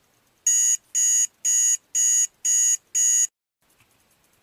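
Digital alarm clock going off: six short, high-pitched beeps, about two a second, that stop after about three seconds.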